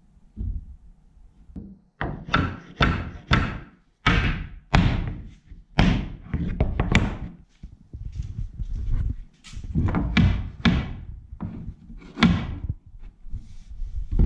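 A dozen or more heavy wooden thumps and knocks at an irregular pace, each ringing out briefly, as oak braces and ledges are knocked and pressed into place on a clamped oak plank door.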